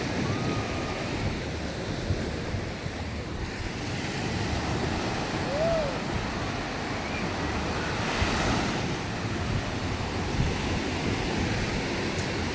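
Sea waves washing onto a sand beach, with wind buffeting the microphone. A wave breaks a little louder about eight seconds in.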